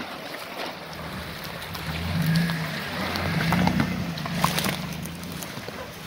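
Engine of an off-road competition vehicle running at low revs as it crawls slowly over rocks, its note swelling in the middle, with a few sharp clicks after the middle.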